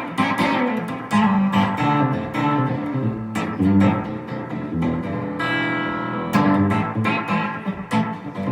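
Electric guitar through an Octavia octave-fuzz pedal, a dirty, fuzzed tone. It plays a funky riff of short, choppy notes, with one note held for about a second a little past the middle.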